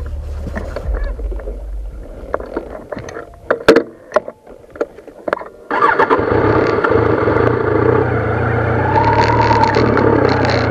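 A few sharp clicks and knocks, then about halfway through a motorcycle engine starts abruptly and keeps running steadily.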